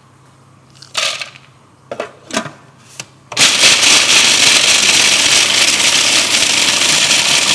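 Electric mini chopper grinding peanuts: a few short knocks and rattles, then the motor starts about three seconds in and runs loud and steady.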